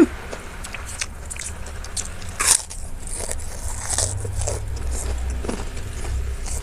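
Close-miked eating: chewing and biting into stir-fried water spinach (kangkung), with small wet clicks and one sharper crunch about two and a half seconds in.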